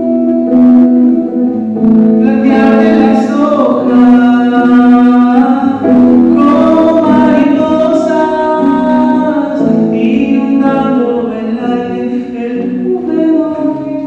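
A man singing with acoustic guitar accompaniment, in long held notes.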